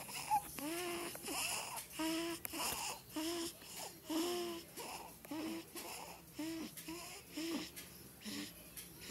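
A sleeping newborn baby's noisy snoring breaths: a short, squeaky, whimper-like grunt on nearly every breath, repeating steadily about once every two-thirds of a second.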